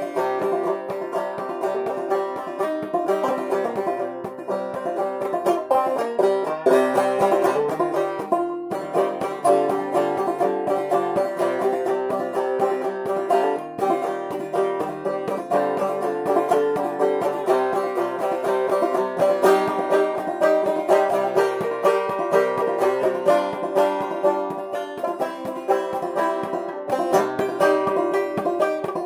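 Five-string banjo in fCGCD tuning played clawhammer style: a continuous run of plucked notes and downstroke brushes with the drone string ringing, playing a blues tune.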